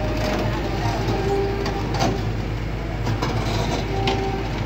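Kobelco crawler excavator's diesel engine running steadily, with a few metallic clanks and brief squeaks from the machine.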